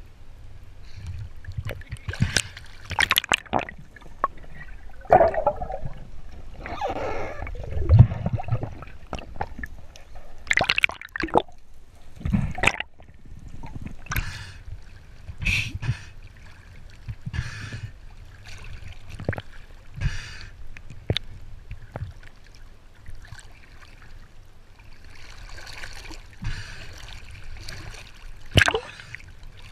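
Sea water splashing and gurgling at the surface, with many irregular sharp splashes, as a swimmer tows a large speared white seabass through the water.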